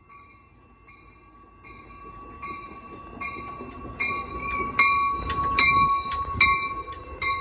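Arriving passenger train's bell ringing in a steady rhythm, about one stroke every 0.8 seconds, growing louder as the train nears, over a rising low rumble of the train.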